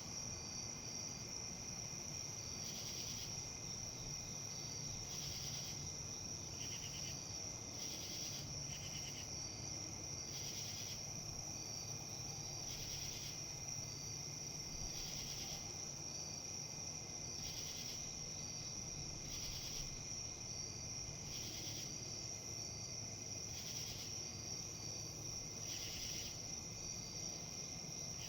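Insects calling: a steady high-pitched trill with short buzzy chirps repeating every two seconds or so, over faint low background noise.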